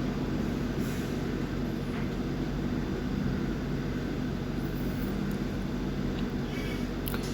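A steady low mechanical hum, even and unbroken, with a few faint light clicks.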